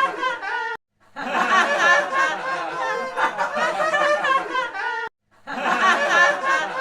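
Group of people laughing, like a canned laugh track, broken by two brief sudden silences, about a second in and about five seconds in, where the laughter cuts off and restarts.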